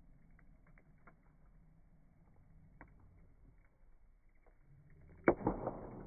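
Wood campfire crackling, slowed down with the slow-motion footage: scattered faint pops, then one loud crack about five seconds in followed by a short run of smaller crackles.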